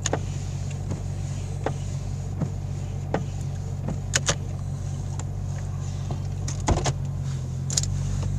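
Jeep Cherokee XJ's 4.0-litre straight-six idling cold, slightly rough, with irregular sharp ticks over the steady hum. The rough idle is a mild misfire, which the owner traced to a failing ignition coil.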